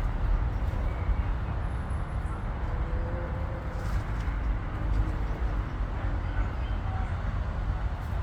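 Steady low rumbling outdoor background noise with a faint hiss above it, and a few faint brief tones mixed in.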